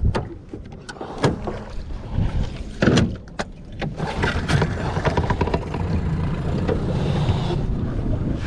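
Small fishing boat moving off: a low, uneven rumble of its motor and water, steadier after about four and a half seconds, with several sharp knocks and clatters of gear against the hull.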